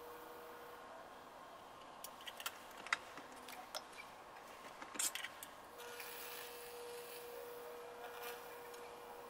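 Faint steady electrical buzz of a high-voltage microwave-transformer rig burning Lichtenberg figures into walnut. It stops about a second in, giving way to a few sharp clicks and knocks as the clamp electrode is handled on the board. It returns near the end with a faint sizzling hiss as the current burns into the wood.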